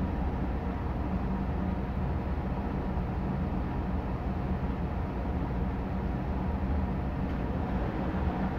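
Steady low hum under an even hiss, with no distinct clicks or knocks.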